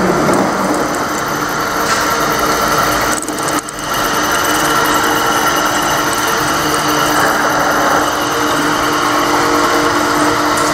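Vertical milling machine running, its end mill cutting a workpiece clamped in the vise: a steady machine whine with several steady tones, dipping briefly a little after three seconds in.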